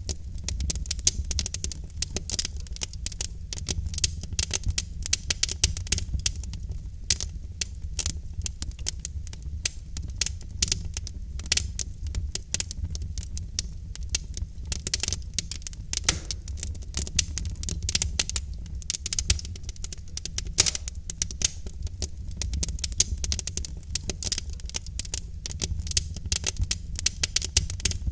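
Wood fire in a fireplace crackling, with many sharp irregular pops and snaps over a steady low rumble of the burning logs.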